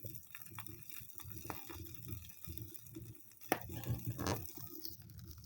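Wood fire crackling in a fireplace: irregular snaps and pops over a low rumble of flame, with one sharp, louder pop about three and a half seconds in.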